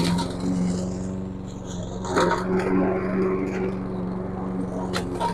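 YardMax 201cc walk-behind mower engine running steadily while the mower is pushed into thick brush. Sharp cracks and snaps of stems struck by the blade come at the start, about two seconds in, and near the end.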